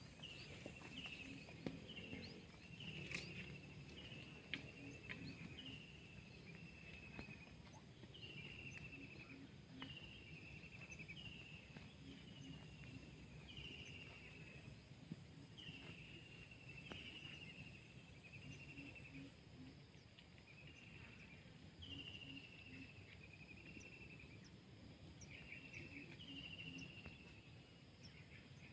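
Faint countryside ambience: a short buzzy chirp, falling in pitch, repeats about every one to two seconds over a soft even background.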